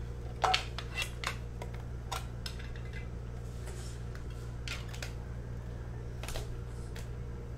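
Trading-card boxes, packs and cards being handled: scattered small clicks and rustles, the sharpest about half a second in, over a steady low hum.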